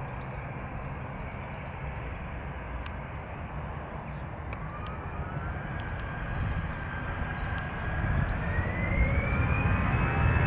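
Jet airliner engines running, with a low rumble and a whine that sets in about four seconds in and climbs in pitch in two steps as the sound grows louder: the engines spooling up.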